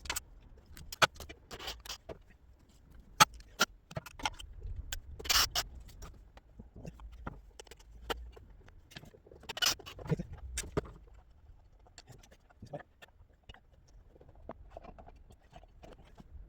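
Irregular clicks, knocks and a few short scrapes of tools and parts being worked by hand while the handle assembly of a Milwaukee cordless chop saw is taken apart. The handling is busiest in the first ten seconds or so and thins out afterwards.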